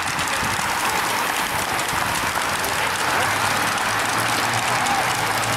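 Spectators clapping as a road-race peloton passes close by, over the whir of the bicycles' tyres and freewheels. A low, steady motorcycle engine hum comes in about halfway through.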